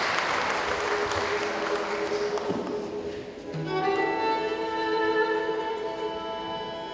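Applause dies away, then kamanchas, Armenian bowed spike fiddles, begin playing about three and a half seconds in with long held notes.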